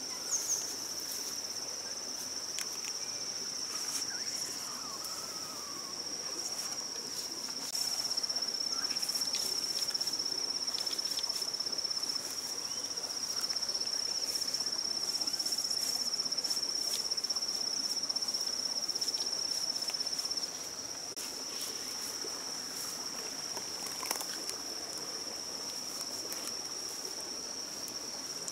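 Steady, high-pitched drone of insects, a little louder in the middle stretch, with light rustling and crackling of fern fronds being handled and hung on a bamboo frame.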